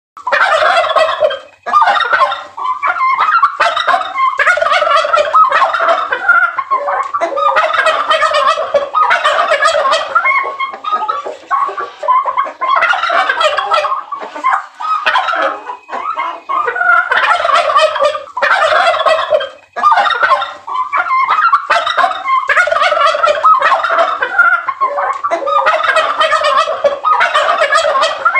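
Male turkeys gobbling over and over, call after call with only brief gaps: toms calling to the hens in the breeding season.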